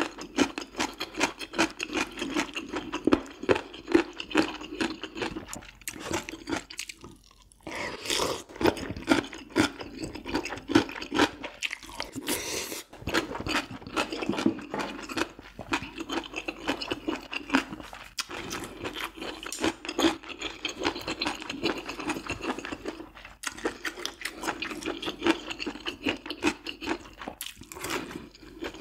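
Close-miked chewing of food, with a steady stream of quick, wet, irregular mouth clicks and a few short pauses between mouthfuls.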